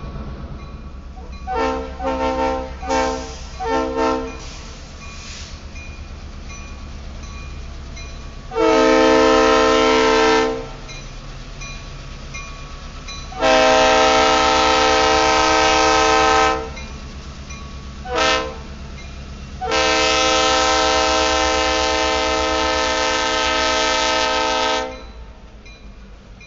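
Diesel locomotive horn gives about four short toots, then the long-long-short-long grade-crossing signal. Under it runs the steady rumble and clatter of a freight train rolling by.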